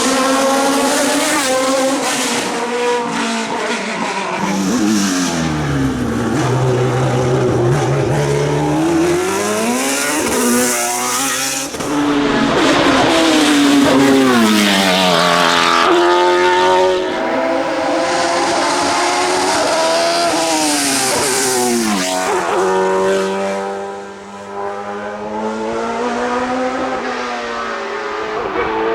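Hill climb race car engine, a formula single-seater or CN sports prototype, at high revs: its pitch climbs through the gears with sudden drops at each shift, then falls away in long sweeps as it slows for bends, before climbing again.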